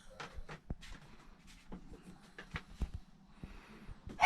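Quiet small room with scattered light clicks and knocks, like handling and movement sounds. A brief sharp cry-like burst comes at the very end.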